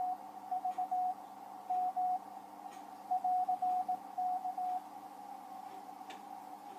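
Audio from the DM2005 ham transceiver's receiver: a Morse code (CW) signal keyed in short and long tones at one mid pitch, over hiss that sits narrowly around the same pitch. The keying stops just under five seconds in, leaving only the hiss, with a faint click near the end.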